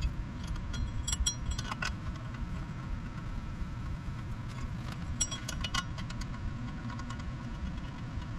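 Light metallic clinks and jingles of hand tools and hub hardware being handled, in two short clusters about a second in and about five seconds in, over a steady low rumble.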